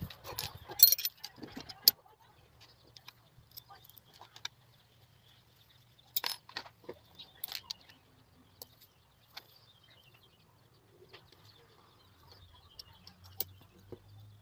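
Hand assembly of a small aluminium marking square: a plastic bag crinkles open and small metal parts, screws, hex key and the aluminium arms, click and tap together. A burst of sharp clicks comes in the first two seconds, a few louder clacks follow about six to seven and a half seconds in, then only faint scattered ticks of handling.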